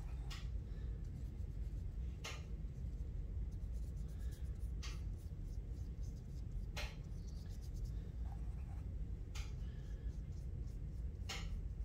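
Small paintbrush scratching across paper as tempera paint is brushed on: about six short strokes, roughly one every two seconds, over a low steady background hum.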